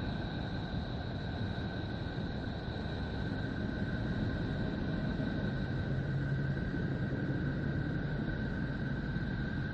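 Planetary 'space sound' sonification: a steady low rumbling drone with two thin steady high tones above it, cutting off suddenly at the end.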